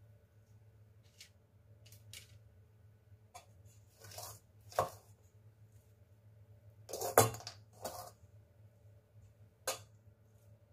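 A metal spoon scraping and knocking against a stainless steel pot while scooping out cookie dough: a few short scrapes and clinks, the loudest about seven seconds in, over a low steady hum.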